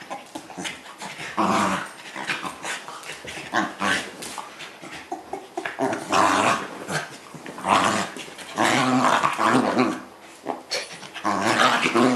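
Two dachshunds play-fighting, growling in repeated rough bouts of a second or more, with quieter scuffling between them. The growls are play, not aggression.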